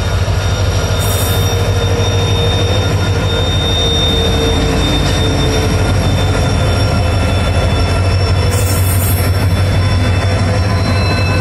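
EMD diesel locomotives, WDG4-class, passing close by with a heavy train: a steady, loud low engine drone with thin high-pitched wheel squeal over it. Two brief hisses come about a second in and near the two-thirds mark.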